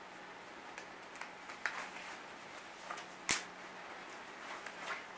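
Gloves being pulled on: scattered rustles and clicks, with a sharp snap about three seconds in and another at the very end.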